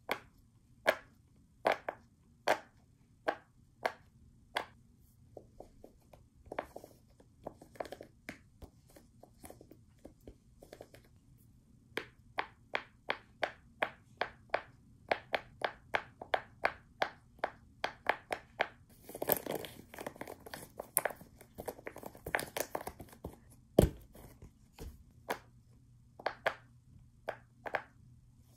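Silicone pop-it fidget toy, its bubbles pressed in one after another by fingers, giving a series of short, sharp pops. The pops come at an uneven pace, then in a fast flurry about two-thirds of the way through.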